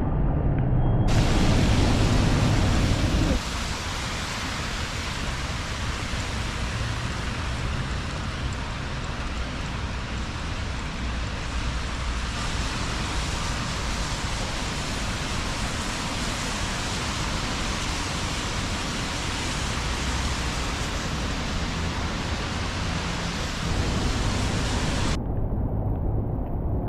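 Steady hiss of rain falling on a wet city street. A low rumble runs under it for the first few seconds and returns near the end, and the hiss cuts off suddenly near the end.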